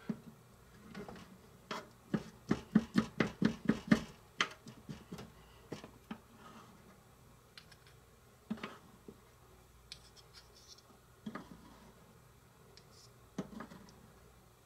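Small knife chopping a cherry tomato on a wooden cutting board: a quick run of blade taps on the board, about four a second, then a few scattered taps and scrapes as the pieces are pushed into a measuring spoon.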